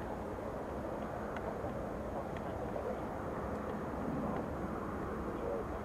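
Embraer Lineage business jet taxiing, its engines giving a steady rumble.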